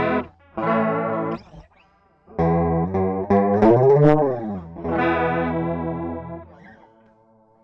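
Electric guitar played through effects pedals with distortion: a few separate chords with gaps between them, one bent in pitch about four seconds in, and the last left to ring and fade out.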